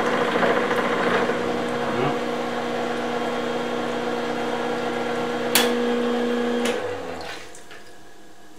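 Milling machine cutting a gear under flood coolant, running with a steady hum. A sharp click comes a little past five and a half seconds in, and about seven seconds in the machine runs down and stops.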